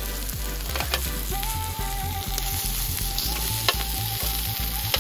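Pork ribs, pork belly and sausages sizzling on a ridged grill pan over a small portable gas stove, a steady hiss with a few sharp clicks.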